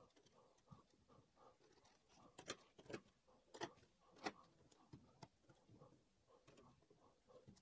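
Faint clicks and taps of small metal hardware being handled and fitted by hand: shims, spacers, wheels and nuts slid onto bolts in a metal plate, with four sharper clicks in the middle.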